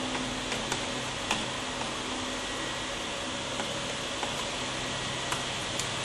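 Steady room hiss, like a fan or air conditioner running, with a few faint light clicks as a slim laptop hard drive is handled and set into its bay.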